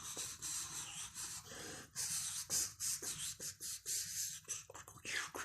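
Mouth and breath noises made as sound effects: an irregular run of sharp clicks and short puffs of air.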